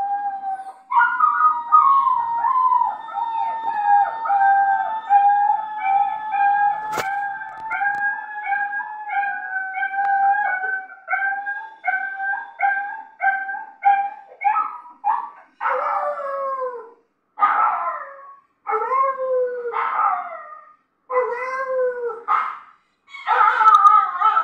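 Dog howling: a long, wavering, held howl pulsing about twice a second, then from about halfway a string of separate howls, each about a second long and bending up and down in pitch.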